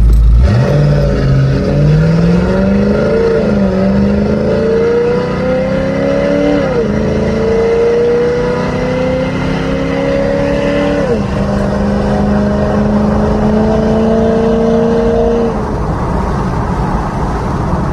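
Ford Mustang GT V8 accelerating through the gears: the engine note climbs, drops back sharply at each upshift, about three times in all, then holds steady at cruising speed and eases off near the end.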